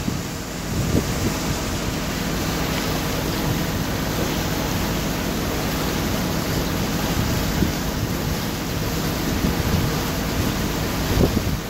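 A motor boat under way: its engine runs with a steady low hum under the rush of water and wind, and wind buffets the microphone with low thumps about a second in and near the end.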